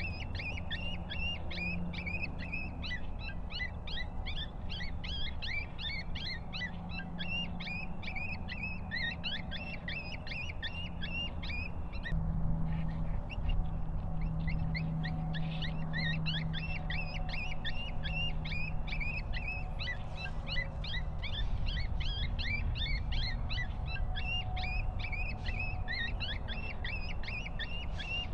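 A dense chorus of short, high-pitched animal calls, several a second, with a brief lull about twelve seconds in, over a low steady hum.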